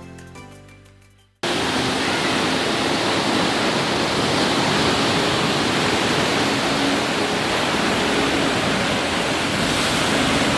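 Background music fades away, then a steady loud wash of sea waves breaking on rocks takes over, a constant roar with no distinct swells.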